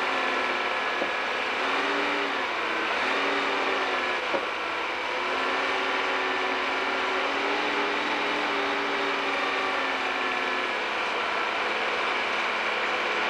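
Timberjack 618 grapple skidder's diesel engine running steadily, its pitch sagging and picking up again several times as the machine works. There is a single sharp knock about four seconds in.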